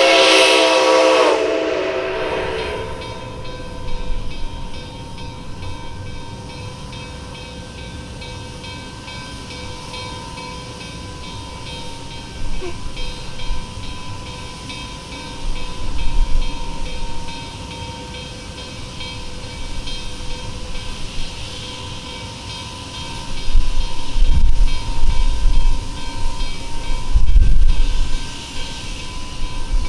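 Nickel Plate Road 765, a 2-8-4 Berkshire steam locomotive, sounds its chime whistle, a chord of several notes that stops about two seconds in. A steady steam hiss follows, broken by a few heavy blasts of steam from the open cylinder cocks and exhaust as the engine starts its train, the blasts coming thick and fast near the end.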